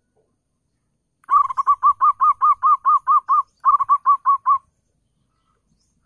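Zebra dove (perkutut) cooing: a quick run of short, arched notes, about five a second. It breaks off briefly, then a shorter run follows before it stops.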